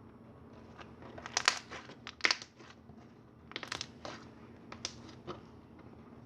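Slime being squished and pressed by hand for ASMR, giving four short clusters of sharp sticky clicks and pops.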